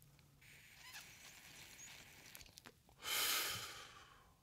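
A person draws in a long, faint drag of cannabis smoke, then breathes it out in a breathy exhale about three seconds in.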